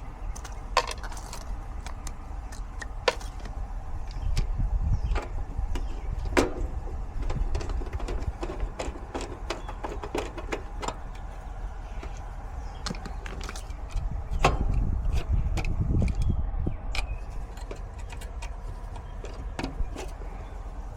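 Hand work on an HVAC unit's panel with a hand screwdriver: scattered clicks and light knocks of the tool and screws, with low rumbling swells twice.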